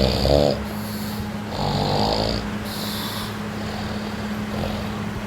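Snoring: two loud, rattling snores about two seconds apart, each followed by a short hiss of breath, over a steady low hum.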